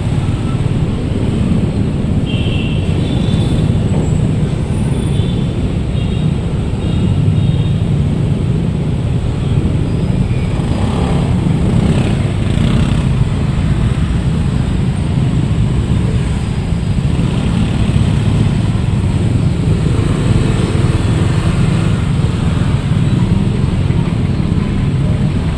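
Dense road traffic heard from a motorcycle in slow, heavy traffic: a steady low rumble of truck and motorcycle engines and tyres.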